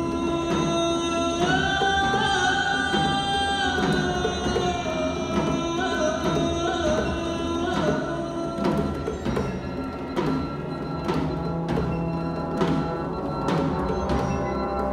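Symphonic wind band with orchestral players performing live: held wind chords and a melody line over percussion, whose strokes come more often from about halfway through.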